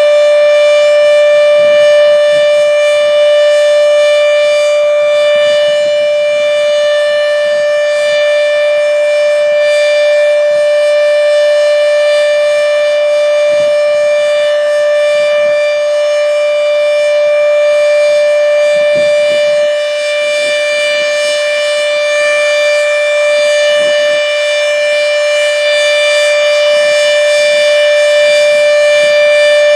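H.O.R. Siro Drone outdoor warning siren sounding its steady Alert signal: one loud, unbroken tone with a stack of higher overtones, holding its pitch throughout.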